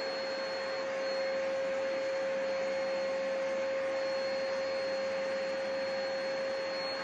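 A steady whirring machine noise with a constant whine, as from a running motor such as a vacuum cleaner or hair dryer.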